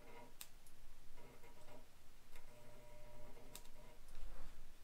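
Antique Ideal electric arc engraving pencil marking a letter on a small plug tap: faint buzzing from the transformer-fed tip in three short stretches as it meets the metal, with a few sharp clicks.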